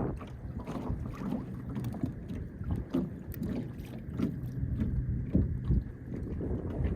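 Fishing boat on choppy water in high wind: waves slapping the hull in irregular knocks and wind buffeting the microphone, over the steady low hum of the electric trolling motor.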